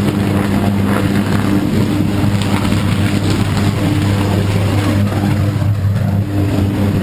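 Loud, steady mains-frequency buzz of a high-voltage electric arc burning in a switchgear cell, wavering and briefly dropping in places. The arc is a fault that burns out the auxiliary-transformer cell.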